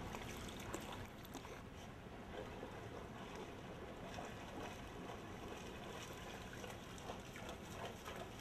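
Faint sloshing and splashing of shallow floodwater as a boxer dog wades through it.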